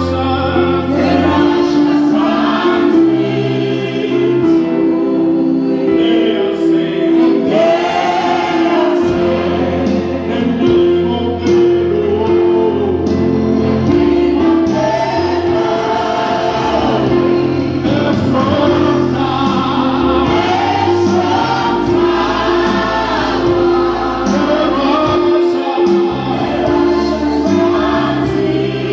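Live gospel worship singing: a group of vocalists singing together through microphones over long held low accompaniment notes.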